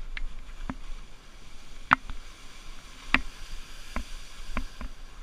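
Skis sliding over slushy spring snow with a steady rush, broken by sharp clicks and clacks, the two loudest about two and three seconds in.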